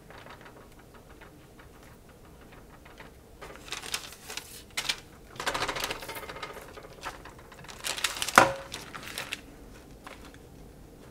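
Quiet kitchen handling: a silicone basting brush dabbing sauce onto raw fish fillets on a parchment-lined baking tray, with crinkles of the paper and small taps. One louder tap comes about eight seconds in as a fillet is picked up.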